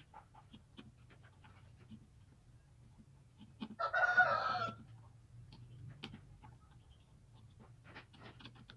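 Small knife scraping and ticking faintly as it carves the mouth slot in a small kite-flute shell. About four seconds in, a loud animal call lasting about a second cuts over it and is the loudest sound.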